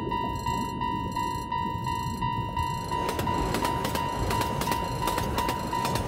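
Japanese railroad crossing warning bell ringing in a steady 'kan-kan' rhythm, about three strikes a second, over a constant low rumble. From about halfway through, a passing train adds a rapid clatter of wheels on the rails.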